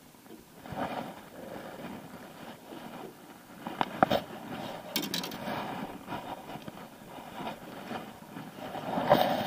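Handling noise of an angler unhooking a catfish in a jon boat: clothing rustling against the camera, scrapes, and a few sharp clicks about four and five seconds in, with a louder rustle near the end.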